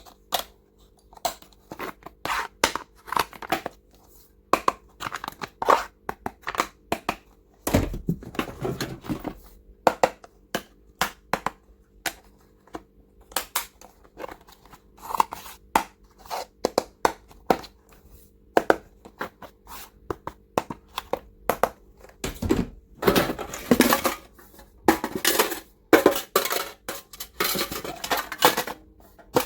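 Hands handling plastic stationery and toys: irregular clicks, taps and knocks of small hard items, with rustling and crinkling of packaging that grows denser in the last several seconds.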